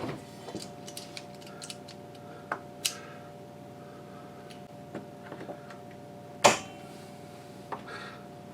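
Vise grips clicking and ticking against a corroded threaded pin as it is worked out of an RV refrigerator door, in scattered small taps with one sharp, louder click about six and a half seconds in. A steady faint hum runs underneath.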